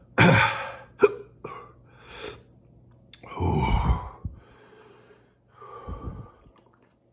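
A man gasping, breathing hard and groaning in pain from the burn of an extremely hot sauce, in several separate bursts, the longest a falling groan about halfway through, with a sharp click about a second in.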